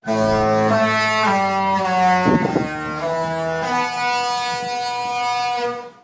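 A ship's musical horn sounding a short melody in long, sustained notes that step from one pitch to the next, fading out near the end.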